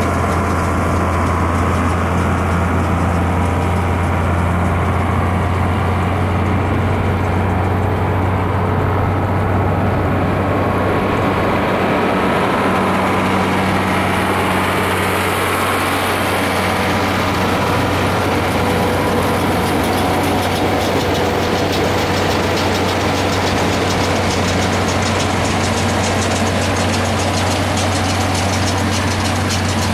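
International Harvester 1066 tractor's six-cylinder turbo diesel engine running steadily under load while round baling with a Hesston 560 baler, a deep even drone with the baler's mechanical clatter mixed in.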